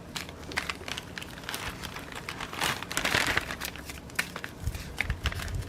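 Plastic kit packaging crinkling and rustling as it is handled, with scattered small clicks and a louder, denser stretch about three seconds in.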